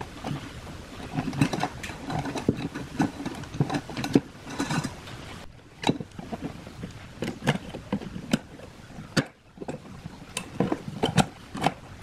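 Old wiring being pulled out of a ceiling fan's metal motor housing: rustling and scraping of wire for the first few seconds, then a series of sharp clicks and taps as pliers work the wire against the casing.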